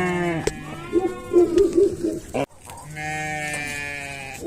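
Sheep bleating: a call ending just after the start, a shorter falling call, then one long, steady bleat in the second half.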